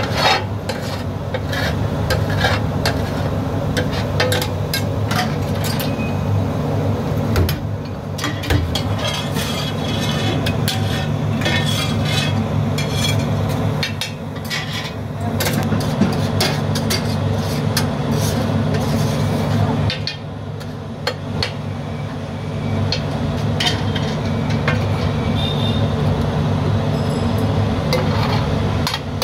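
Metal spatula clanking and scraping on a flat iron griddle as pav bhaji is stirred and mashed, with a faint sizzle, over a steady low hum.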